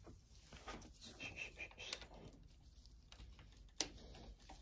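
Faint hand-work noises: quiet rustles and small clicks as a screw is refitted on a motorcycle's clutch lever mount, with one sharper click near the end.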